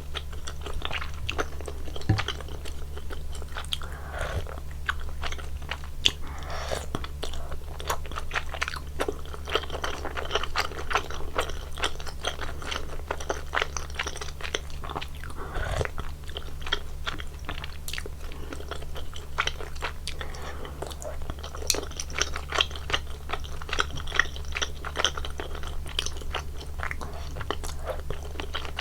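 Close-miked chewing of spicy soup tteokbokki (chewy rice cakes): dense, irregular wet mouth clicks and smacks with occasional short slurps. A steady low hum runs underneath.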